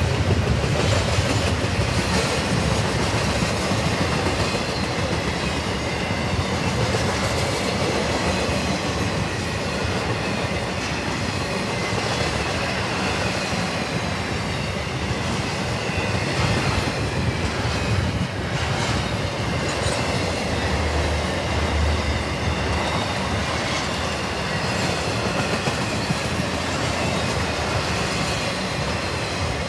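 Double-stack intermodal container train rolling steadily past, its steel wheels clattering over the rails.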